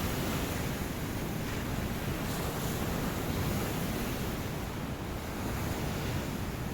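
Ocean waves washing onto a beach, a steady rush of surf that swells and eases slightly.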